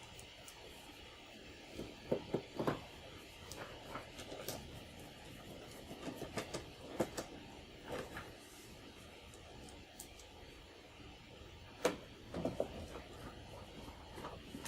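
Screws being driven into a Commodore 64's plastic case: scattered small clicks and knocks of the screwdriver and the case being handled, at irregular intervals.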